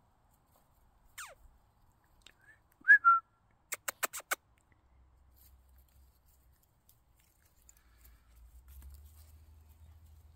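A person whistling: a faint falling whistle, then two short loud whistle notes about three seconds in, followed by five quick sharp clicks, calling a puppy.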